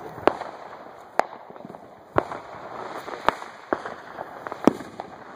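Small Roman candles firing, a sharp pop about once a second as each shot goes off, with fainter pops and crackles in between.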